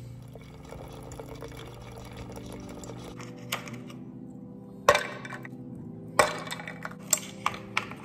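Coffee poured into a glass mason jar of ice, followed by several sharp clinks of ice against the glass, over soft background music.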